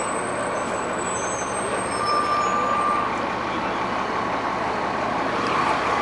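Steady street traffic noise with a low hum of idling motor vehicles, and a brief thin high tone about two seconds in.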